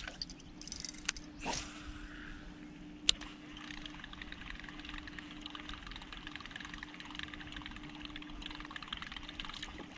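A fishing cast swishes out and a sharp click follows, then a rapid, steady ticking as a buzzbait is reeled back across the water, over a low steady hum.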